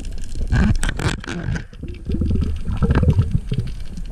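Underwater bubbling and gurgling at the microphone, in irregular surges.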